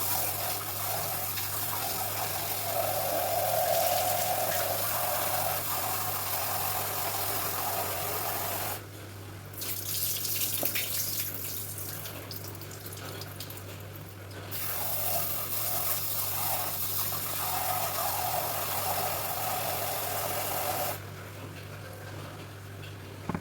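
Water running from a kitchen tap while lentils are washed, with a short break about nine seconds in; the tap shuts off near the end.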